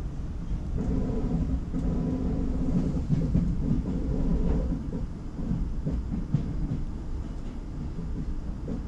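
Renfe series 470 electric multiple unit running along the line: a steady low rumble of the wheels on the track, with a few light knocks.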